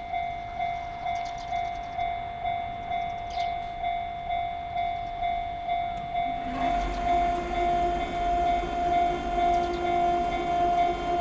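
Japanese railway level crossing alarm ringing its steady electronic 'kan-kan' tone about twice a second. From about six seconds in, an approaching train adds a louder, steady pitched sound over the bell.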